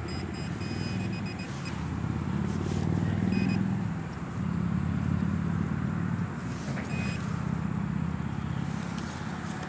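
A low rumble swells and eases twice. Short electronic beeps from a metal detector sound in the first second and a half, and twice more briefly later, over the dig in the same hole.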